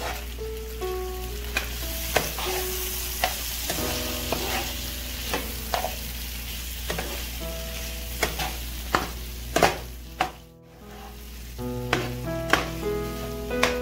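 Pork belly pieces with minced onion and garlic sizzling in oil in a frying pan as a spoon stirs them, with frequent sharp clicks and scrapes of the spoon against the pan. The sizzle dips briefly about ten seconds in.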